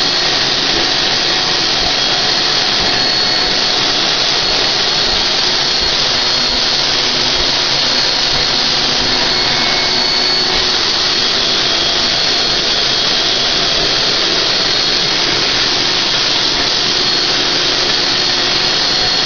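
HVLP spray turbine running steadily, with the hiss of the spray gun spraying coating onto a bathtub. A steady high whine sits over the hiss.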